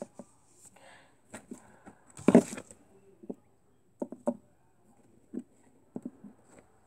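Hard plastic toy figurines being handled and set down on a tabletop: scattered light taps and clicks, with one louder clatter a little over two seconds in.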